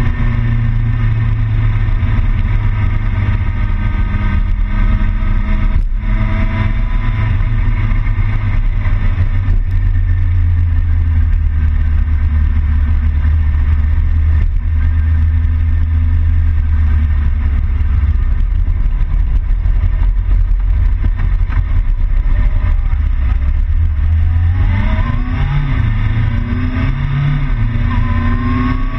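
Motorcycle engine running at a steady cruise with heavy wind rush over the onboard microphone; near the end the engine note rises several times in short steps as the bike accelerates.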